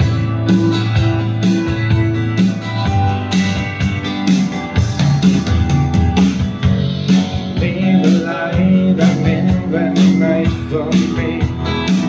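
Live band playing an instrumental passage of a synth-pop ballad arranged for guitar, piano and drums, with a steady drumbeat and sustained low bass notes.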